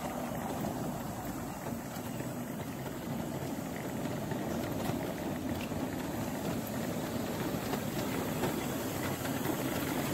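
Electric power wheelchair rolling over interlocking paving stones: a steady rumble of the tyres and drive, with no grinding from the gearbox (reducer), whose grinding fault on rough ground does not show.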